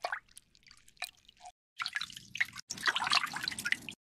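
Water dripping from a plastic slotted spoon as it lifts pieces out of a pot of water. From about two seconds in there is denser splashing and dripping as the pieces go into a glass bowl of water.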